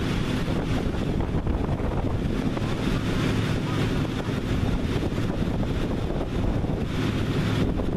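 A vehicle engine running steadily at an even speed, with wind rumbling on the microphone.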